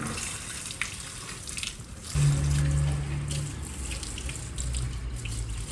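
Water running steadily from a tap. A low steady hum joins about two seconds in.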